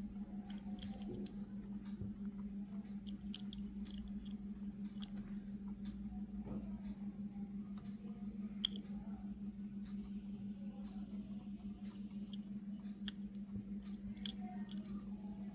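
A steady low hum with faint, scattered small clicks and taps from a diecast toy car being handled and turned over in the hands.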